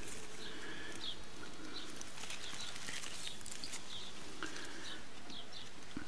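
Birds chirping: short high chirps repeating irregularly over a steady outdoor background.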